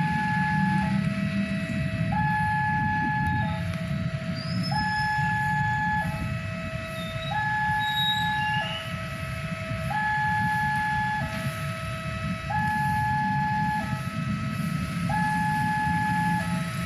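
Electronic railway level-crossing warning bell sounding its two-tone ding-dong, a higher and a lower note alternating, each held about a second and a quarter, over the low rumble of a train.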